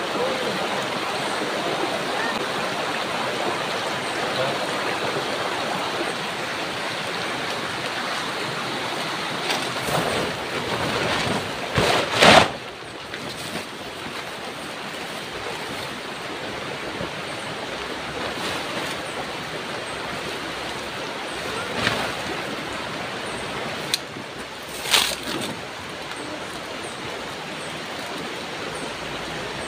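Shallow river flowing over stones, a steady rushing. A few short louder noises break in around the middle and near the end.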